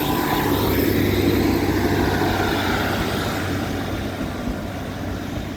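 Bus engine running with a steady low hum, easing off slightly toward the end.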